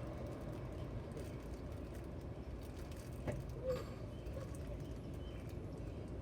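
Quiet outdoor background: a steady low rumble, with a couple of small clicks and a short chirp-like call a little over three seconds in.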